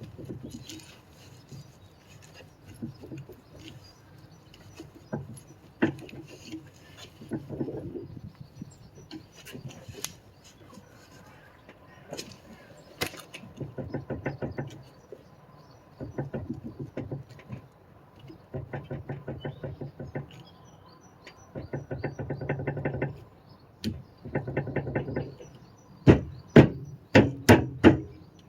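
MVG detachable towbar clunking and rattling in repeated bursts of about a second each, with several sharp loud knocks near the end. This is the clunking noise whose normality the owner questions.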